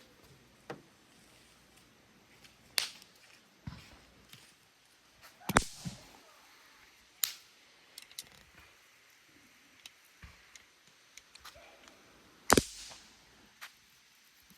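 Snappers (bang snaps) thrown on the ground and popping: about ten sharp cracks at irregular intervals, two of them much louder than the rest.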